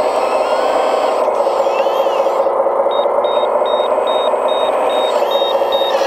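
Steady high whine of a 1/14-scale RC wheel loader's electric hydraulic pump and drive as it works its bucket. About halfway through, a row of short, high beeps begins, about two a second, like a warning beeper.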